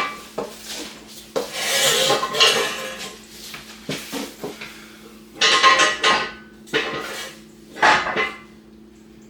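Steel jack stands and jack hardware clanking and rattling in four bursts as they are set and adjusted under a Jeep's frame rail, with some metallic ringing.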